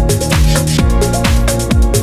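Background electronic dance music with a steady kick-drum beat, about two beats a second, and ticking hi-hats.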